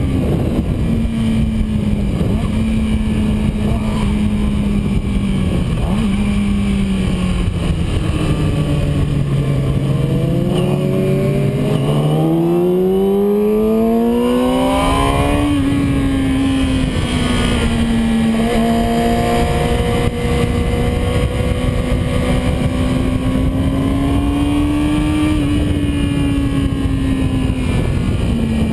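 Yamaha R6 inline-four sport-bike engine heard from onboard at high revs, with constant wind noise. The revs sink for a few seconds around the middle, then climb steadily as the bike accelerates, and hold high again before easing off near the end.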